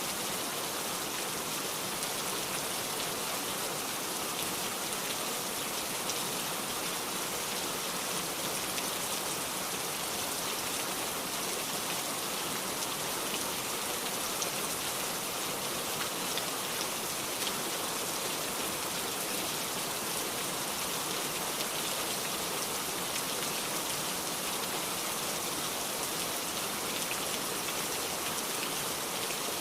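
Heavy rain falling in a steady downpour: a dense, even hiss of rain on surfaces, peppered with fine drop ticks.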